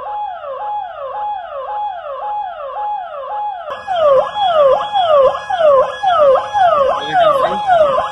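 Electronic warning siren of an AI wildlife-detection camera, sounding a repeating falling yelp about two and a half times a second. It is the alarm that the camera sets off on detecting a bear.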